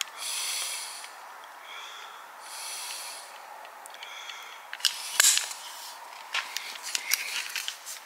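Silicone sealant being squeezed from a sealant gun's nozzle around a door lock's fixings: a few hissing, sputtering spurts, then a run of sharp clicks and ticks from about five seconds in.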